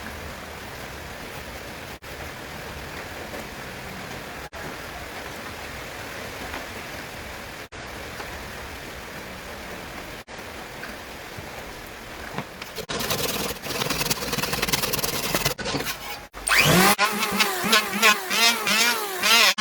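Workshop power-tool noise in short edited clips: a steady hiss at first, then a louder rattling buzz, and in the last few seconds a loud motor whose pitch repeatedly rises and falls.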